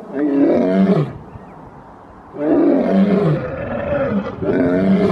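Male lion roaring: three deep, loud roars, the middle one the longest, each sliding down in pitch at its end.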